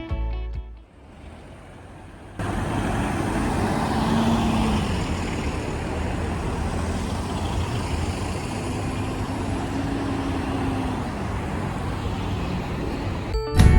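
A vehicle on the road: a steady rush of road and tyre noise, with a faint engine hum that rises and falls twice. Background music fades out at the start.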